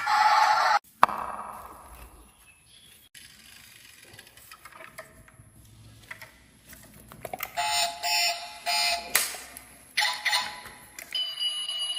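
Music cuts off about a second in, followed by faint scattered clicks. From about halfway, a run of short, repeated, ringing electronic tones, like beeping from a toy, with a steady high tone near the end.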